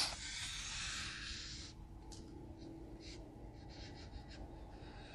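Felt-tip permanent markers drawing on paper, faint: one long stroke, then several short scratchy strokes.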